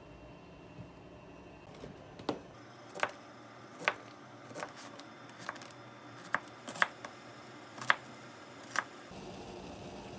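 Kitchen knife chopping Korean zucchini on a cutting board: about ten sharp knocks at an uneven pace, roughly one every half second to a second, starting about two seconds in.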